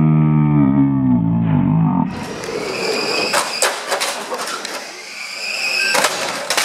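Small electric 1/12-scale RC banger cars whining around an indoor track and crashing into each other, with sharp plastic knocks and clatter, the heaviest pile-up about six seconds in. Before that, for the first two seconds, a low wavering drone with several pitches.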